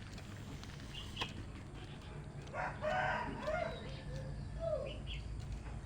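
A bird calling: one call of about a second, then a couple of shorter calls that fall in pitch, with a single sharp click shortly before.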